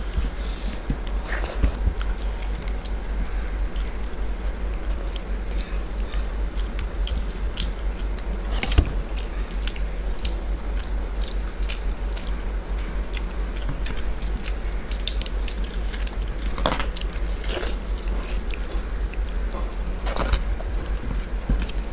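Close-miked eating sounds: people chewing and eating soft khichuri by hand from steel plates, with many scattered small clicks and ticks. A steady low hum runs underneath.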